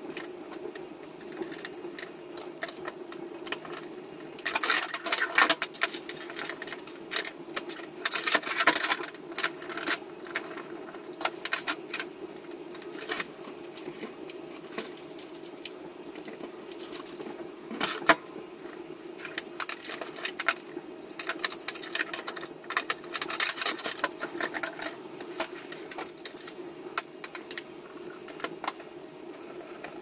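Hard plastic clicking, scraping and rattling as a Roomba's bumper and shell are handled and fitted by hand, in irregular bursts with a sharper click about eighteen seconds in. A steady low hum runs underneath.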